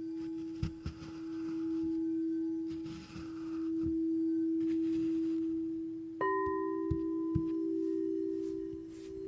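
Crystal singing bowls tuned to 432 Hz ringing: one steady pure tone swells and fades in slow waves, and about six seconds in a second, slightly higher bowl comes in and rings on with it. A few faint soft knocks sound underneath.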